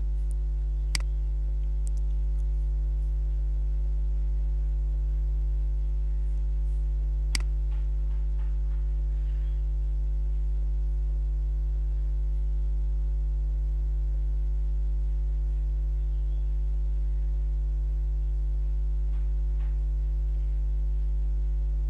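Steady low electrical hum with a stack of overtones, with a light click about a second in and a sharper click near the middle.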